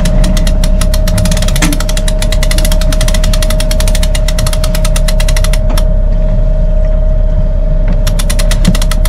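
A sailboat's cockpit winch cranked by hand, its ratchet pawls clicking in a fast, even run that stops for about two seconds some six seconds in, then starts again. A steady engine drone runs underneath.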